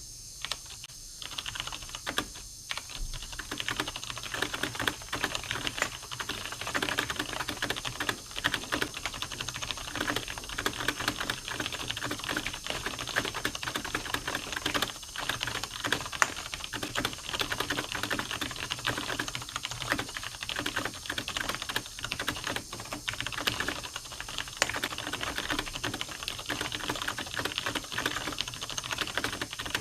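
Continuous fast typing on a computer keyboard: a dense, unbroken stream of key clicks that starts abruptly.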